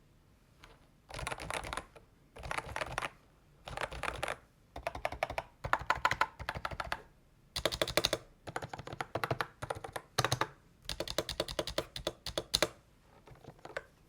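AULA S99 membrane keyboard being typed on in runs of rapid keystrokes with short pauses between them; the last run near the end is faint.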